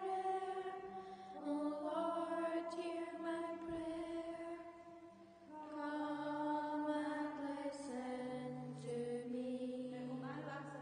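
Slow chanted hymn sung by a group of voices in long held notes, with a low sustained note joining underneath about six seconds in.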